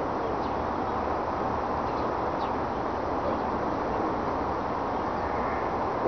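Steady outdoor background noise of a snowy suburb with no bang, with a few faint high bird chirps about half a second and two seconds in.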